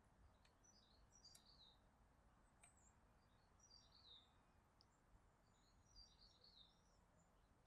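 Near silence with faint bird chirps: three or four short bursts of quick falling calls.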